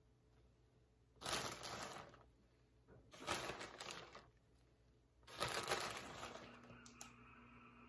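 Three bursts of crinkling, like plastic food packaging being handled, each about a second long. About six and a half seconds in, a refrigerator's ice maker starts a steady hum.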